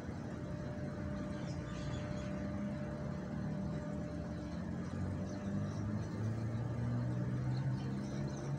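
Street traffic: a steady hum of passing vehicles, with one engine growing louder from about halfway through.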